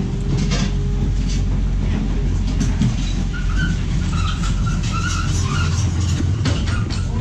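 A vehicle engine running steadily while the engineless truck rolls across the concrete floor on a floor jack, with clanks, knocks and short squeaks from the jack and chassis as it moves.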